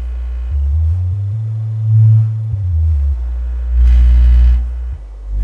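Ultimate 12-inch active subwoofer playing a low sine test tone from a signal generator. The tone steps up in pitch and back down as the frequency is turned. It swells louder and buzzier about four seconds in.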